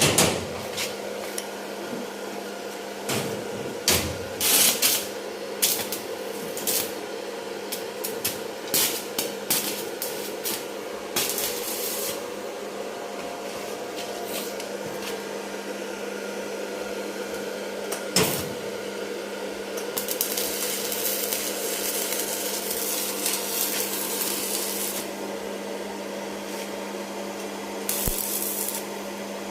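Auto body repair work: scattered taps and knocks of tools on the car body over a steady hum, with a stretch of hissing noise lasting about five seconds in the second half.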